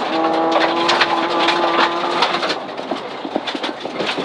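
2004 Mitsubishi Lancer rally car's engine, heard from inside the cabin, pulling at steady high revs, then its note dropping away about two seconds in as the throttle comes off. Gravel rattles and pings against the car throughout, with tyre and road noise.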